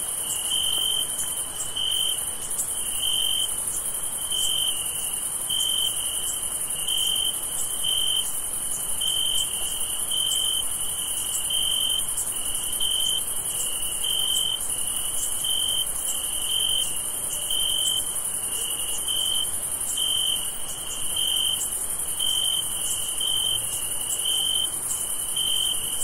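Crickets chirping: a high, evenly repeated chirp about three times every two seconds over a steady, higher-pitched chorus of insects trilling.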